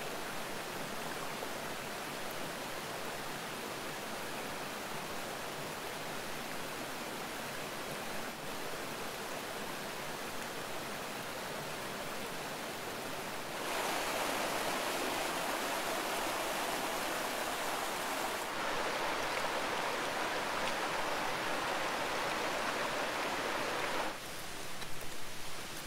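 A rocky forest stream running, a steady rush of water. It gets louder about halfway through and drops back near the end, where a few light splashes come through.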